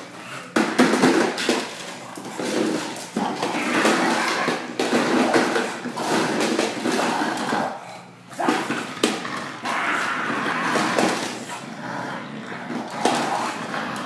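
A plastic toy lawn mower rattling and clattering over a tile floor as an English bulldog pushes and mouths it. The noise is irregular and full of clicks, with a short lull about eight seconds in.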